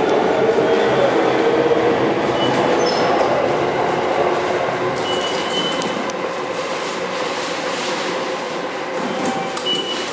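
Train running on the tracks at a station platform: a steady rumble that gets gradually quieter, with a few brief high squeals from the wheels.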